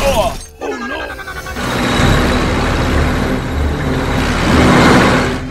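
Added soundtrack of music and sound effects. It opens with short squeaky gliding cartoon effects, then a loud, dense rushing vehicle-engine effect builds toward the end as the toy vehicles drive off.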